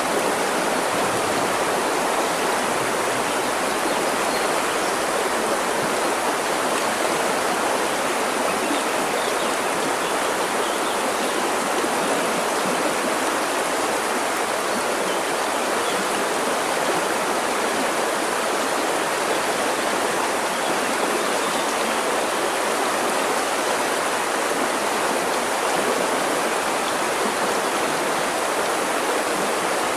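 River water flowing over rocks, a steady, even rush with no change.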